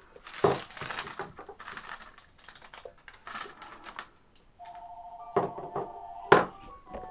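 Clicks and rustles of plastic battery drawers and parts being handled, then a steady electronic tone of two pitches at once, with a few sharp clicks over it, that cuts off abruptly.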